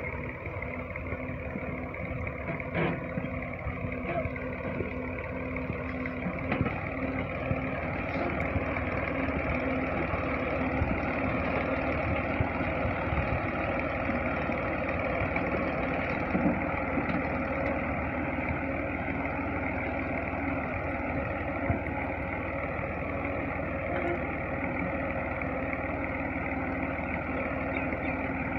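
Farm tractor's diesel engine running steadily under load while pulling a seed drill across a ploughed field, getting a little louder after several seconds.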